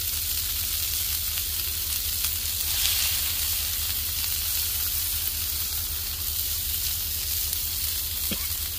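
Onion smash burger patties sizzling on a hot flat-top griddle: a steady frying hiss over a low steady hum.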